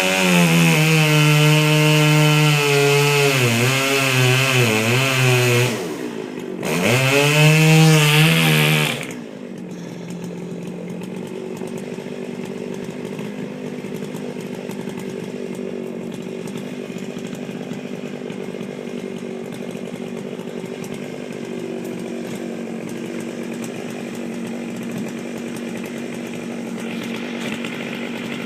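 Stihl 084 chainsaw, a large two-stroke, at full throttle cutting into a white oak trunk, its pitch sagging and recovering as the chain bites, with a brief let-off about six seconds in. About nine seconds in the throttle is released and the saw runs at a steady, much quieter idle.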